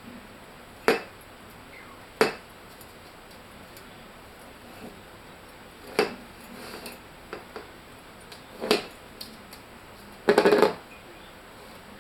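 Ceramic mug knocked and rolled about on a wooden floor by a baby porcupine: sharp single clinks and clunks every couple of seconds, then a louder rattling clatter about ten seconds in.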